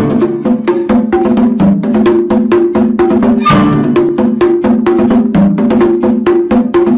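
Background music with a fast, steady percussive beat over a repeating low melody.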